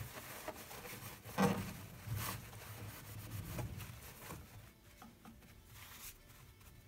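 Faint rubbing and a few soft knocks from a sewing machine case being washed out with soapy water, quieter for the last couple of seconds.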